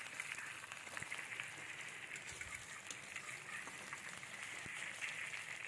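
Sliced onions and ginger-garlic paste frying in hot oil in a kadhai as they are stirred: a steady, soft sizzle with fine crackles.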